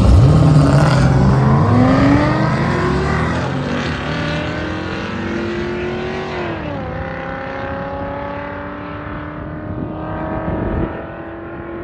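All-wheel-drive car launching on a drag strip and accelerating hard away down the quarter mile. The engine note climbs, drops sharply at an upshift a little past halfway, then climbs again, growing duller and fainter as the car pulls away.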